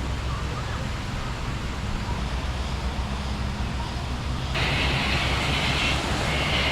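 Rain falling, a steady hiss over a low rumble. About four and a half seconds in, a louder, brighter hiss sets in abruptly.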